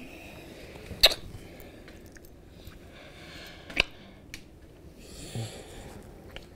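A couple kissing: breathing through the nose with two sharp wet lip smacks, about a second in and again nearly three seconds later.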